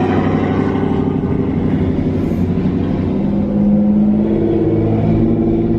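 Car engine running at low revs close by, a steady low note whose pitch rises slightly a few seconds in.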